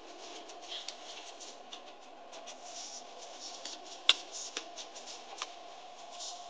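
Cabin noise of a vehicle driving over desert sand: a steady drone with scattered light rattles and clicks, and one sharp click about four seconds in.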